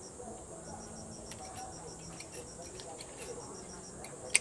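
Crickets chirping in a rapid even pulse, about five chirps a second, over a steady high insect drone. A single sharp click comes near the end.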